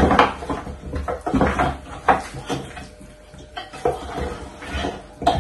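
Seasoned cow foot pieces being mixed by hand in an aluminium pot: wet squelching of the meat and pieces knocking against the pot, in uneven bursts, with a sharper knock near the end.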